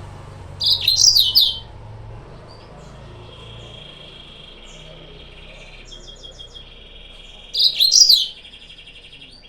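Yellow-fronted canary singing: two loud bursts of sharp, fast chirps, about a second in and near the end, with a steady buzzing trill running between them.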